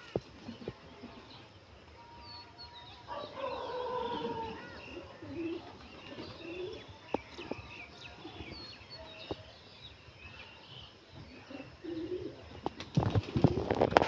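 Rock pigeons cooing softly as they feed, with high chirps over them. Near the end comes a quick run of taps and wing flaps as some of the pigeons take off.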